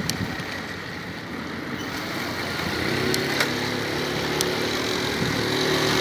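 Homemade electric bike with a converted 2 kW washing-machine BLDC motor, running at speed with wind and tyre noise. About halfway in, a steady hum from the motor and drivetrain comes in, and the sound slowly grows louder as the bike gathers speed.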